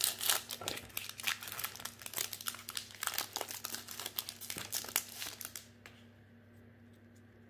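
Foil wrapper of a Magic: The Gathering collector booster pack crinkling and tearing as it is ripped open and peeled back from the cards. The crinkling stops about two-thirds of the way through.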